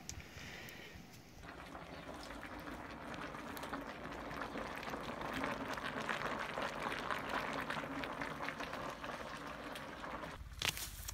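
Cauldron of chopped sugar beet boiling over a wood fire, a dense crackle of bubbling that builds and is strongest through the middle. Near the end it gives way to a low rumble and a couple of sharp clicks.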